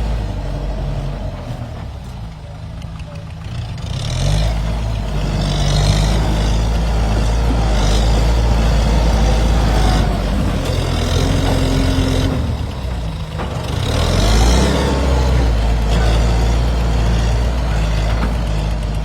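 Kubota M7040SU tractor's four-cylinder diesel engine running under way, picking up revs about four seconds in and again near fourteen seconds.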